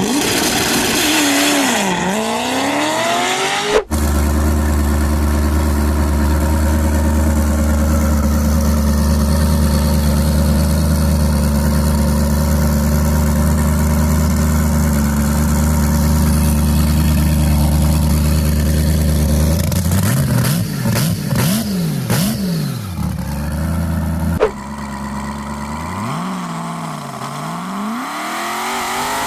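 Tuned turbocharged car engines revving in a string of separate clips. The revs rise and fall, then one engine holds steady revs for about fifteen seconds. Around twenty seconds in there is more revving with a few sharp exhaust pops.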